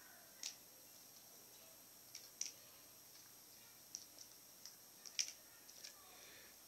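Faint, sharp clicks and ticks at irregular intervals, about a dozen, the loudest about five seconds in: small plastic and metal parts and tools being handled while a laptop is taken apart.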